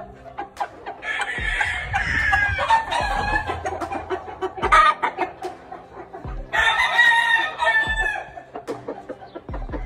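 Gamefowl roosters crowing twice, each crow about two seconds long, the first about a second in and the second past the middle, with a short sharp call between them.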